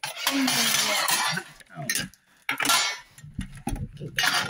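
Small metal tins clinking and rattling against each other and the table as they are handled and moved about, in a long bout at first, then a shorter burst about halfway and a brief one near the end.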